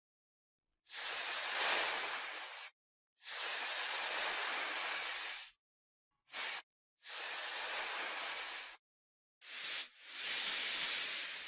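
Hissing noise in six separate bursts, most lasting one to two seconds and one very short. Each burst cuts off abruptly into silence.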